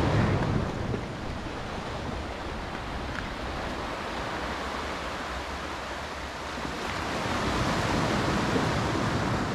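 Sea surf washing onto a beach, a steady rushing that is loudest at the start, eases off, then builds again about seven seconds in.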